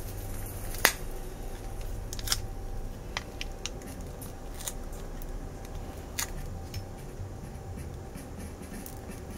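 Scattered sharp clicks and taps of small handheld phone-repair tools, the loudest about a second in, over a steady low hum.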